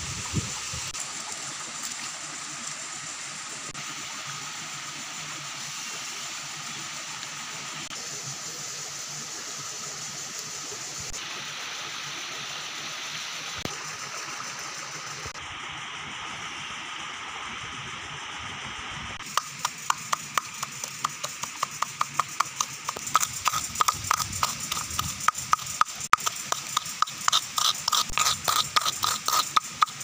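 Steady rush of a flowing stream, then, from about two-thirds of the way in, a stone pounding red chillies and salt in a half coconut shell: quick, regular knocks, several a second.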